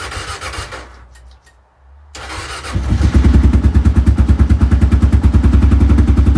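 Cold start of a carbureted 2009 Kawasaki KLR650 single-cylinder engine on choke, at freezing temperature after a month unused. The starter cranks, pauses about a second in, cranks again, and the engine catches about three seconds in. It then settles into a loud, steady, evenly pulsing run, a quick start for a carbureted bike in the cold.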